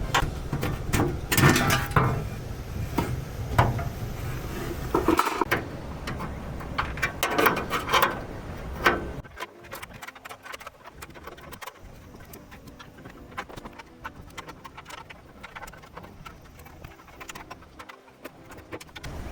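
Clattering, knocking and tapping of hands-on work with tools and parts. It is busy and loud for the first nine seconds or so, then turns into lighter, quicker clicking.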